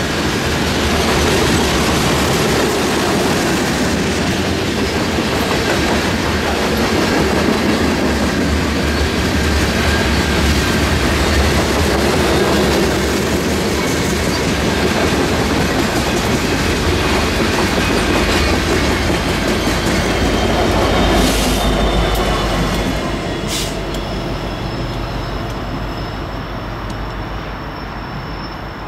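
Union Pacific grain train's covered hopper cars rolling past at close range: a steady rumble and clatter of steel wheels on the rails. It fades away over the last several seconds as the end of the train passes.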